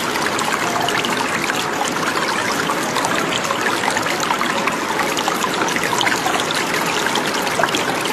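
Running, splashing water: a steady rush dotted with many small splashes, unchanging throughout.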